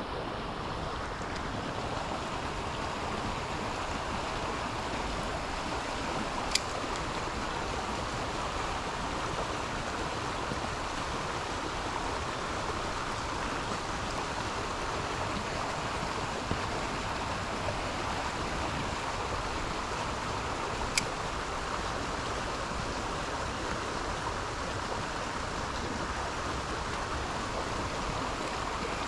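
Steady rush of creek water running over riffles. Two brief sharp clicks cut through it, one about six seconds in and one about twenty seconds in.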